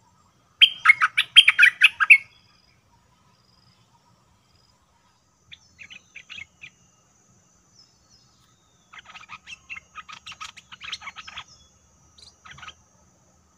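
Bulbul singing: a loud, quick, bubbling run of notes about half a second in. Softer groups of notes follow around six seconds and from about nine to eleven and a half seconds, with a couple more near the end.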